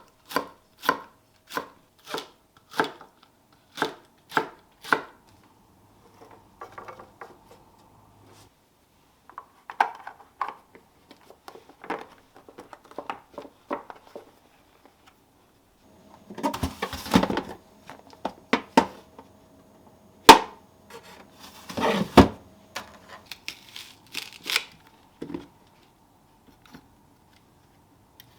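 Kitchen knife chopping on a cutting board in even strokes about two a second, stopping about five seconds in. After that come scattered soft handling sounds, with a couple of louder clattering bursts and one sharp click in the second half.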